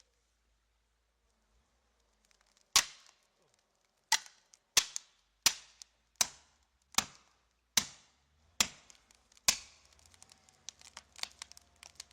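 A run of nine sharp, evenly spaced strikes, about one every three-quarters of a second, each ringing out briefly, followed by a patter of small clicks and crackles near the end.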